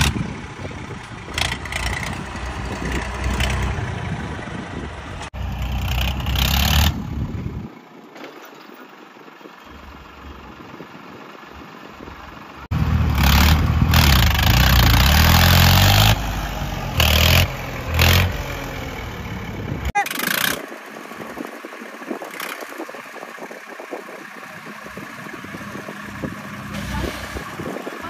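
Swaraj tractor's diesel engine running and revving as the tractor is driven, loudest in a revving stretch about halfway through, with several abrupt jumps in sound between clips.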